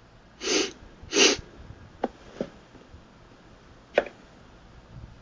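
A man breathing out or sniffing in two short, breathy puffs close to a phone microphone, followed by a few light clicks. The last and loudest click comes about four seconds in.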